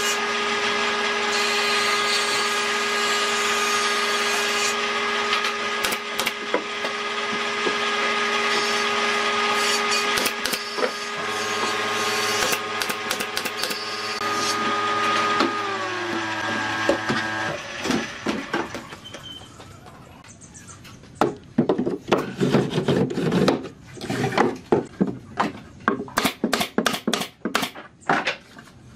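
An electric power tool's motor running steadily, then slowing with a falling pitch and stopping about two thirds of the way in. After a short lull come many irregular knocks and taps of wood being worked by hand.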